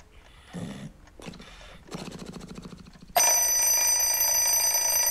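Twin-bell alarm clock ringing loudly, starting abruptly about three seconds in. Before it come a few low, rasping sounds.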